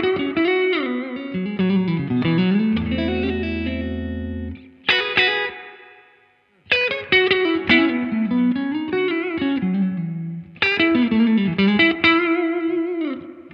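Electric guitar played clean through a Laney Lionheart Foundry 60-watt amp with its built-in reverb turned fully up: picked melodic phrases and chords, with one chord about five seconds in left to ring and fade away. The reverb tail is not very long.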